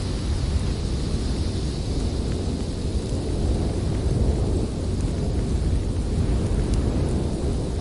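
Blizzard wind blowing in a steady low rumble, with a higher hiss that fades over the first few seconds.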